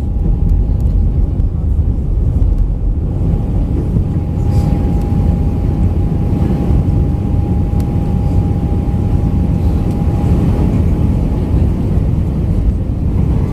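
Airbus A319 cabin noise heard from a window seat: a steady, loud low rumble of the engines and airflow, with a steady whine that steps higher near the end.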